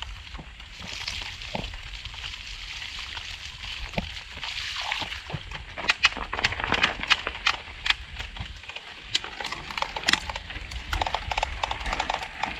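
Mountain bike ridden through mud and puddles: tyres squelching and sloshing, with a dense run of sharp clicks and crunches from about six seconds in, from a chain and drivetrain clogged with mud and sand. Low wind rumble on the microphone.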